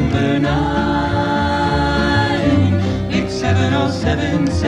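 Folk trio singing in close harmony, holding long notes, backed by acoustic guitar.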